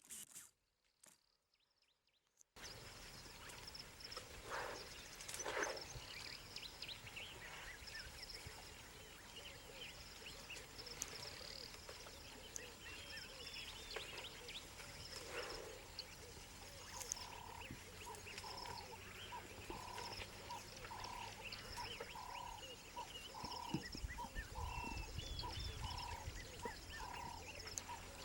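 Wild outdoor ambience of many chirping birds. From about midway, an even call repeats somewhat less than twice a second. A brief low rumble comes near the end.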